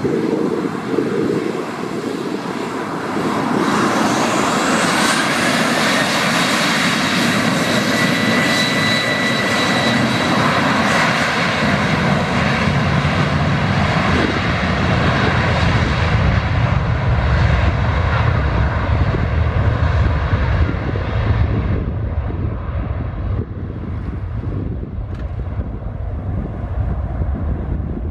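Boeing 737-800's CFM56-7B turbofan engines spooling up to takeoff thrust, with a whine rising about four seconds in and then holding steady. As the takeoff roll goes on, the high whine fades and low engine rumble takes over.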